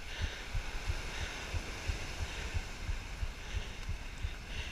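Surf washing over rocks and wind on the microphone, with low, irregular knocks a few times a second from the angler's handling as he winds the spinning reel.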